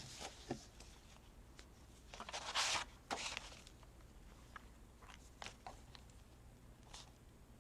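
Craft materials being handled on a tabletop: a short rustle of paper about two and a half seconds in, among scattered light clicks and taps.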